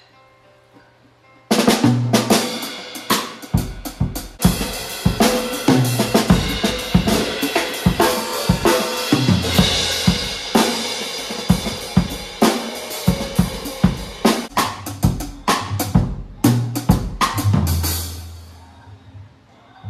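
A band playing a take with the drum kit loudest: it comes in hard about a second and a half in, with dense drum hits over bass and guitars. Near the end it stops on a held low note that rings out and fades.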